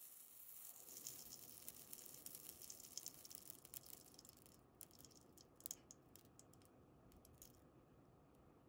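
Faint sizzling and crackling of flux-core solder melting onto a telescopic antenna's solder tab under a soldering iron, the flux boiling off as smoke. The dense crackle thins to scattered small pops about four and a half seconds in.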